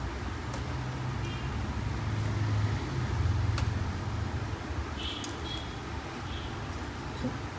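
Steady low background rumble with a few light clicks and taps as the printer's wiring and plastic parts are handled and fitted.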